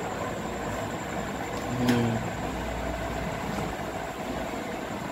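Steady background rumble, with one short low hum and a click about two seconds in.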